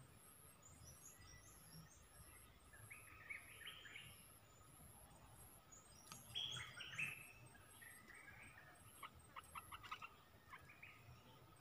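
Faint olive-winged bulbul calls: short phrases about three seconds in and again around six to seven seconds, then a quick run of sharp notes near the end, over a faint, regular high-pitched pulsing.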